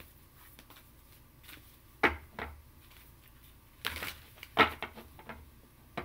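Tarot cards being handled on a table: a few sharp taps and flicks, two about two seconds in and more about four seconds in, the loudest near the middle.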